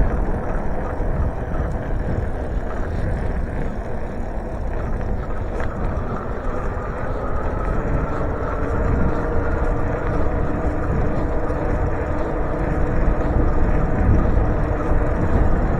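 Steady rumble of wind and tyre noise from a bicycle being ridden along a road, with no distinct events.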